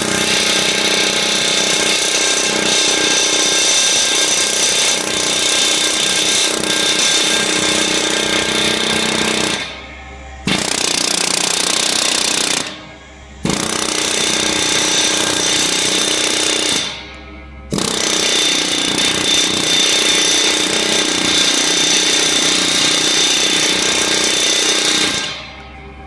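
Pneumatic beading hammer rapidly hammering the end of a boiler tube over against the tube sheet, with a steady high metallic ringing. It runs in four long bursts with short breaks about ten, thirteen and seventeen seconds in.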